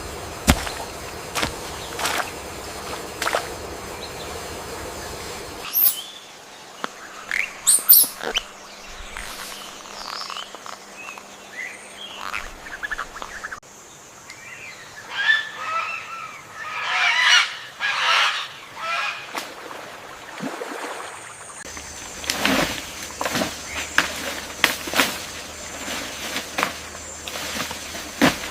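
Wild animal and bird calls over forest ambience in several spliced segments: sharp short calls and sweeping gliding notes, then a dense run of rapid repeated calls around the middle, then scattered calls again.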